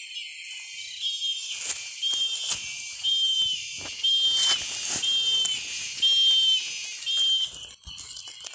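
Scuffling and rustling in dry leaves and grass at an armadillo's burrow. In the background a short, high whistle-like note repeats about once a second over a high, steady hiss.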